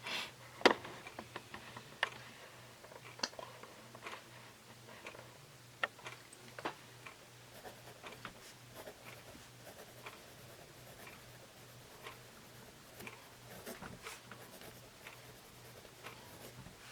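Pentel Graph Gear 500 mechanical pencil with 0.7 mm lead writing on paper: a faint scratching of the lead, broken by scattered, irregular sharp ticks, the loudest a little after half a second in.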